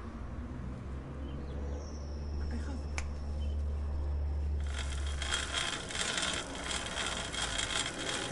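Bicycle drivetrain clicking in a dense, fast run of ticks that starts a little past halfway, over a low rumble, with a single sharp click about three seconds in.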